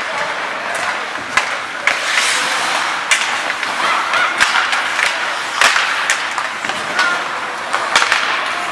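Ice hockey play: skate blades scraping and carving on the ice in a steady hiss, with sharp clacks and knocks of sticks and puck scattered through it.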